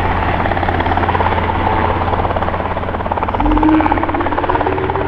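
Robinson R22 Beta II helicopter hovering just above the ground: a steady, rapid rotor beat over the buzz of its four-cylinder Lycoming piston engine. A steady low tone joins about three and a half seconds in.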